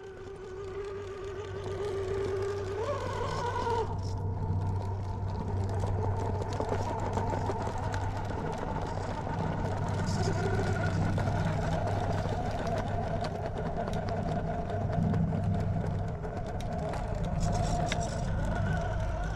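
Fusion SE 1800KV brushless motor and geared drivetrain of a Traxxas TRX4-based RC rock crawler whining as it crawls over rock. The whine steps up in pitch about three seconds in, then holds fairly steady under a low hum.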